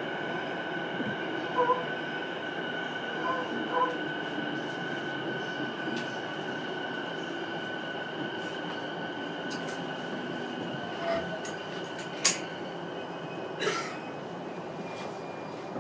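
Inside a JR East E233-series electric train's motor car: a steady hum with a steady high whine and no rise or fall in pitch. There are a few short beeps in the first four seconds and a sharp click about twelve seconds in.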